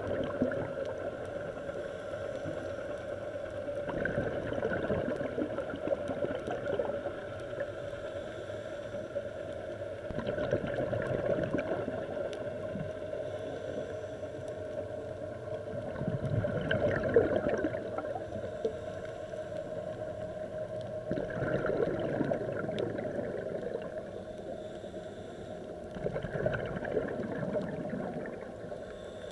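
Underwater sound of a scuba diver breathing: a steady muffled hum, with the gurgle of exhaled bubbles from the regulator swelling up five times, about every five to six seconds.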